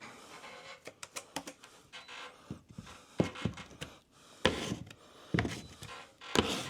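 Hand scraper scraping set cornice cement on a wall patch in short rough strokes, with scattered clicks and taps of the blade between strokes.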